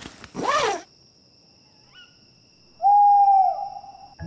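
Cartoon owl hooting: a short rising-and-falling hoot, then a long, steady hoot about three seconds in, the loudest sound here.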